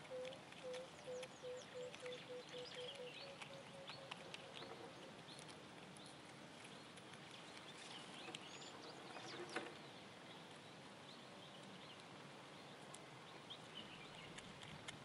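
Quiet outdoor bird ambience: a series of short, low, evenly spaced calls, sinking slightly in pitch, fades out about five seconds in, over scattered faint high chirps. A single sharp click comes a little after halfway through.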